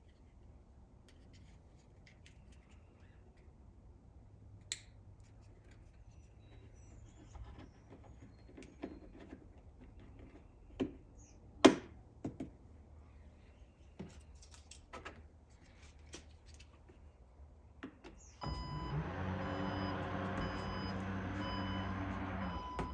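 A series of sharp plastic clicks and taps from the Porsche Panamera's rear hatch button and trim being handled, one much louder snap in the middle. After that a steady motor hum starts suddenly on the car, with a regular beeping over it.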